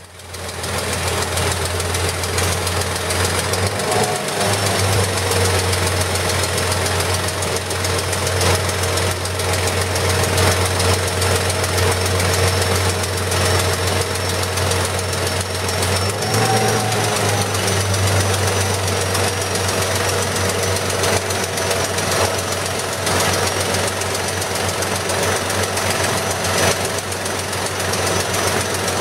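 A Stripe Hog truck's ultra-high-pressure water-blasting rig runs steadily, stripping painted bike-lane lines from the asphalt. Its engine and pump make a loud, even drone, with a rushing hiss of spray and vacuum over it. The pitch shifts briefly about 4 and 16 seconds in.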